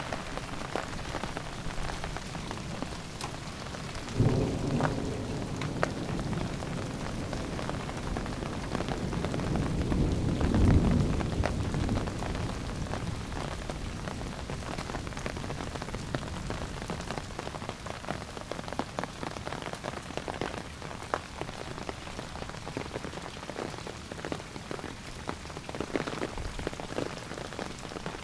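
Steady rain falling during a thunderstorm, with individual drops ticking on nearby surfaces. Thunder breaks in suddenly about four seconds in, and a longer rumble swells and peaks around ten to twelve seconds in.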